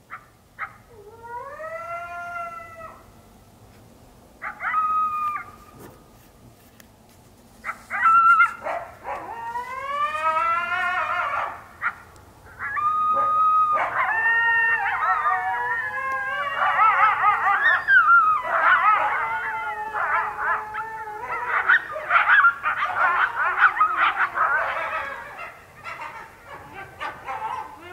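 Coyotes howling. A few single drawn-out howls rise and fall first. From about halfway, many howls and yips overlap in a group chorus.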